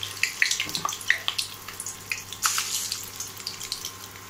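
Marinated fish steaks shallow-frying in hot oil in a steel pan: a steady sizzle with many irregular crackles and pops of spattering oil.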